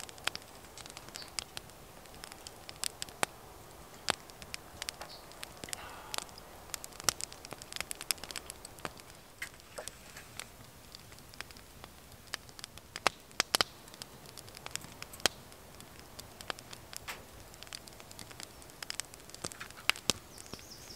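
Wood fire crackling in a stove: irregular sharp pops and snaps over a faint hiss, a few louder snaps in the middle.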